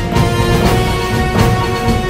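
Theme-style background music: held notes over a steady beat.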